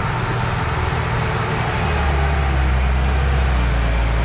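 Ashok Leyland truck's diesel engine labouring as the loaded truck climbs a steep dirt slope, its low hum growing louder about halfway through as it draws near.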